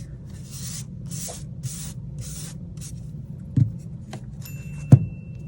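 Five short hissing puffs of air or spray in quick succession over a low steady hum, then two knocks, the second one sharp and the loudest. A faint high steady tone comes in near the end.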